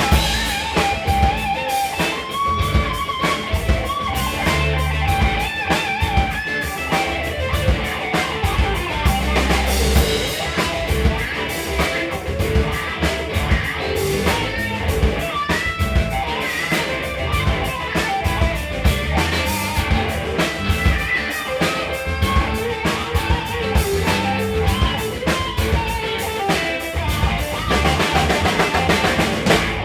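Live rock band playing an instrumental break: electric guitar lines over bass and a drum kit keeping a steady beat.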